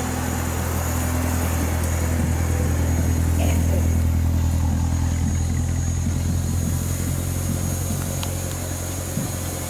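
Low-speed running of a Chevrolet Corvette C7 convertible's V8 engine as the car rolls past, growing louder to about the middle and then fading as it moves away.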